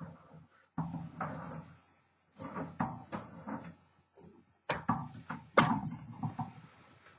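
Irregular mechanical clacks and clunks of a 1932 Smith Corona Sterling typewriter being worked, with single strikes and short sliding rattles, and the sharpest clack a little past halfway.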